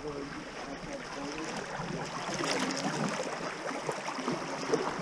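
Kayak paddling through a shallow, rippling river: water splashing and gurgling around the hull and paddles, a little louder about halfway through.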